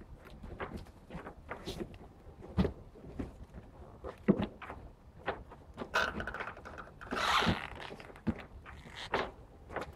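Cardboard fruit boxes being handled and stacked on pallets: irregular thuds and knocks as boxes are set down one on another, with a longer rustling scrape about seven seconds in.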